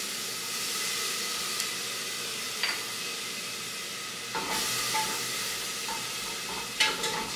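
Water and oil sizzling steadily on the hot bottom of a pressure cooker, deglazing the browned meat residue, while garlic, onion and parsley are stirred and scraped with a plastic slotted spoon. The spoon knocks against the pot a few times, once about two and a half seconds in and again near the end.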